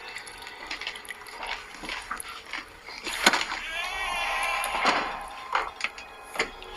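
Liquid pouring into a glass, the pitch rising as it fills, between a few sharp clinks and knocks.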